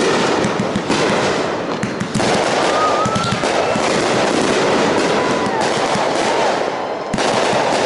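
Aerial firework shells bursting in quick succession with continuous crackling and popping. Sharp loud bursts come at the start, about two seconds in, and again about seven seconds in.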